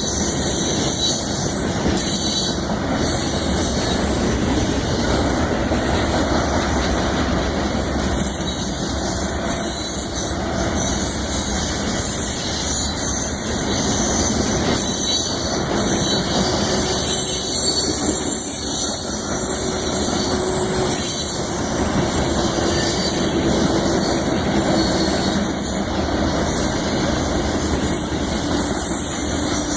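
Cars of a loaded grain train rolling past, with the steady rumble and clatter of steel wheels on rail and a faint high wheel squeal.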